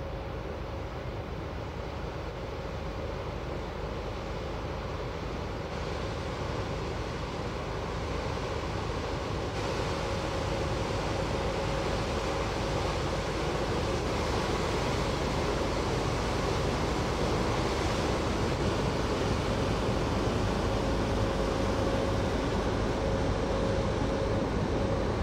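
Chemical tanker passing close by: a steady rush of bow-wave water and ship machinery noise with a steady hum, growing gradually louder as the ship goes past.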